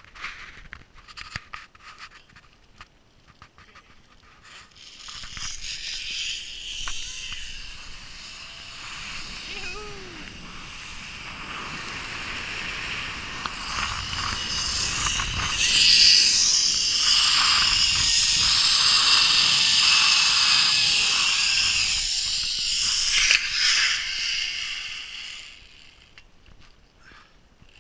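Zipline trolley running along a steel cable: a few clicks as it sets off, then a hissing whir that builds over several seconds, runs loud for most of the ride and fades away near the end as it slows.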